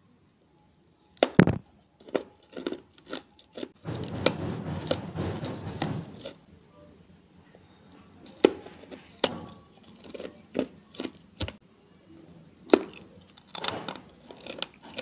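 Close-miked mouth biting and crunching hard sugar candy and ice: sharp single cracks, a stretch of steady crunching chewing about four to six seconds in, then scattered cracks near the end.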